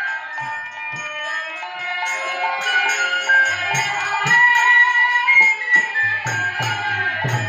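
Bengali kirtan music: a bamboo flute (murali) plays a gliding, held-note melody over a steady rhythm of small brass hand cymbals (kartal) and strokes of the khol drum. The deep drum strokes come in more strongly about halfway through.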